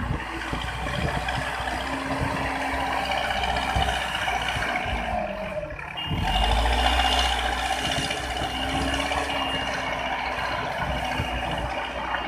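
JCB 3DX backhoe loader's diesel engine running steadily as the machine works. Its pitch sags about six seconds in and climbs back, and the engine gets louder from there, with a thin steady high whine alongside.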